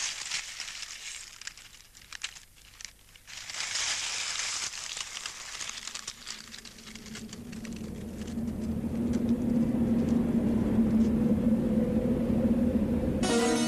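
Crackling, hissing noise full of small clicks, then a low steady hum that swells up and becomes loud, with plucked strings coming in just before the end.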